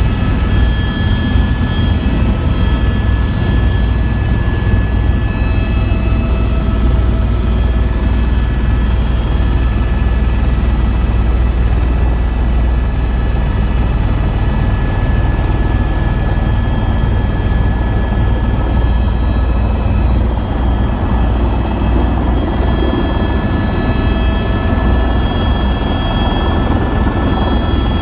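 Helicopter in flight: steady rotor and turbine engine noise, a deep continuous drone with thin, steady whining tones above it.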